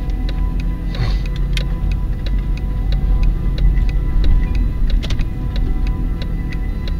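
Car interior: low engine and road rumble with a turn-signal indicator ticking evenly, about three clicks a second.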